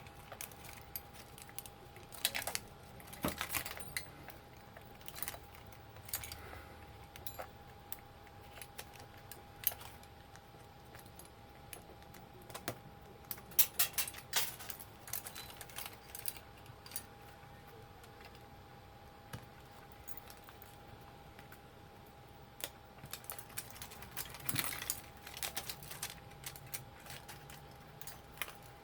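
Small plastic and metal parts of an old electronic label maker clicking and clattering as it is taken apart by hand, in scattered bursts, with a faint steady high hum underneath.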